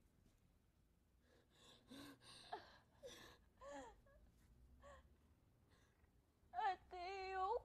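A girl crying: soft gasping sobs and short whimpers, then a louder, wavering crying voice near the end.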